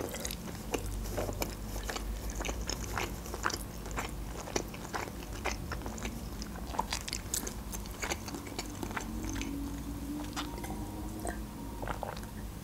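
Close-up chewing of a mouthful of crab stick: a steady run of many small, sharp mouth clicks and smacks.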